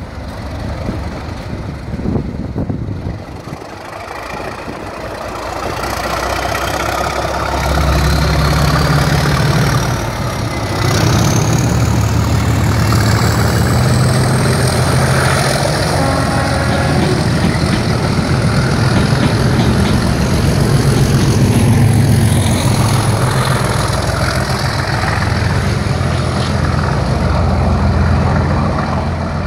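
A pair of Class 37 diesel locomotives with English Electric V12 engines pulling away under heavy power. The engine note builds over the first several seconds into a loud, steady low running sound. Over it a whistle rises in pitch for about ten seconds as the turbochargers spool up.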